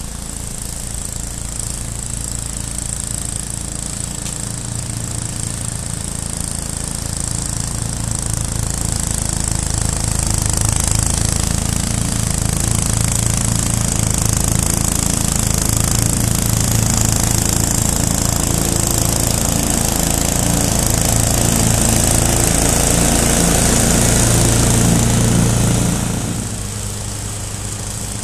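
Ransomes 36-inch walk-behind mower's petrol engine running under load as it cuts and side-discharges dense, matted grass. It grows louder as the mower comes close, then drops off quickly near the end as it turns away.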